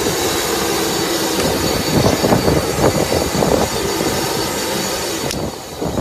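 Jet aircraft engine running: a steady rushing noise with high whining tones. The high whine cuts off abruptly near the end.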